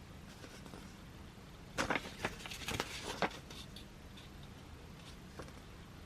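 Pages of a glossy album lyrics booklet being handled and turned: a short run of crisp paper rustles and taps about two to three seconds in, otherwise faint room tone.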